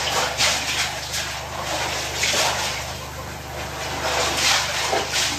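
Foot treading laundry in a bucket of soapy water: water splashing and sloshing in an irregular run of splashes as the clothes are stamped down.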